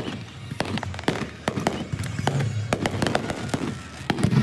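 Fireworks display going off: a quick, irregular string of sharp bangs and crackles, several a second.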